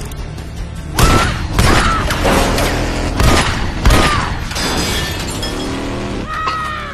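Action-film soundtrack: a series of about five heavy gunshots between one and four seconds in, each with a brief falling whine after it, over music.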